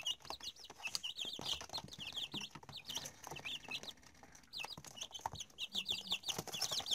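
A brood of week-old chicks peeping: rapid, overlapping short high chirps that thin out into a brief lull a little past the middle, then pick up again. Scattered light taps sound under the peeping.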